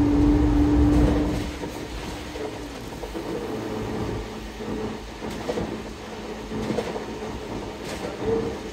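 Interior of a GO Transit bus on the move: a steady engine and drivetrain whine over a low rumble, louder for about the first second and a half, then easing to a quieter hum with road noise and occasional small rattles.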